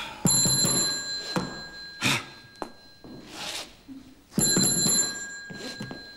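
Hotel reception desk bell struck twice, about four seconds apart. Each strike gives a sharp, bright ring that fades within about a second.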